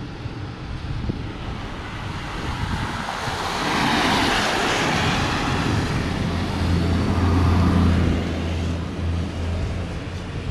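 A motor vehicle passing: a rushing road noise swells to a peak about four seconds in, followed by a steady low engine hum that fades near the end.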